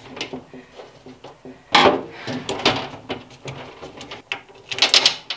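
Knocks and clicks from an IKEA SKÅDIS pegboard panel being unscrewed from the back of a cabinet. There is a sudden sharp knock about two seconds in, then scattered lighter taps, and a cluster of sharp clicks near the end as the screws and their spacer washers come loose.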